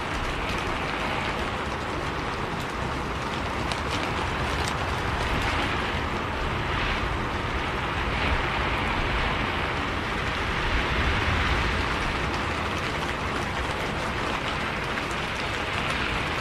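Rain heard from inside a moving bus: a steady rain hiss over a low rumble of engine and road, with occasional sharp ticks.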